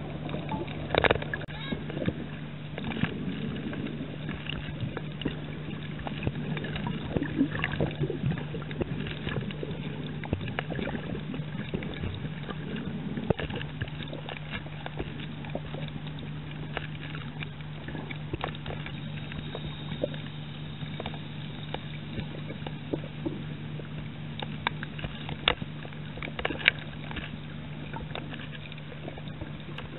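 Underwater ambience over a coral reef: a steady low hum with scattered clicks and crackles throughout.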